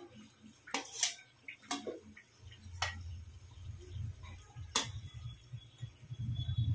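Steel slotted spatula clinking against the wok and a steel plate a few times as fried samosas are lifted out of the oil and set down; the loudest clink comes about a second in. A low hum comes in about halfway through.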